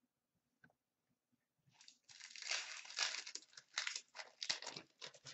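The foil wrapper of an Upper Deck Artifacts hockey card pack is torn open and crinkled in the hands. A run of dense crackling bursts starts about a second and a half in.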